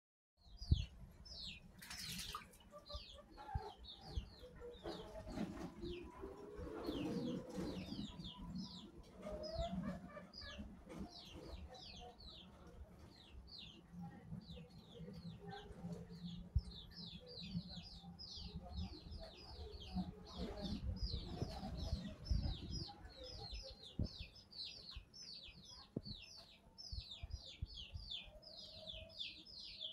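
High, rapid chirping of small birds, about three short downward-sliding chirps a second without a break. Under it, soft splashing and wing flutters from a pigeon bathing in a basin of water.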